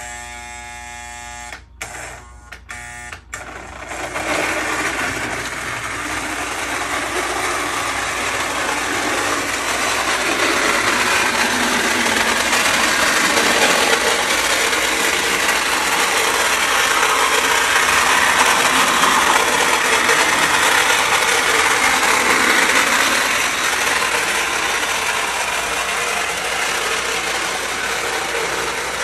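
A buzzing hum with a few clicks over the first three seconds. Then, about four seconds in, a Lionel Navy Yard switcher toy locomotive's motor and gears start up and run loudly and steadily, noisy because the little engine needs lubrication.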